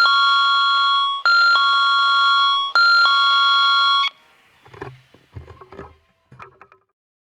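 Station platform train-approach warning chime: an electronic two-note ding-dong, a short higher note falling to a longer lower one, repeating about every one and a half seconds. It stops about four seconds in, leaving a few faint low thumps.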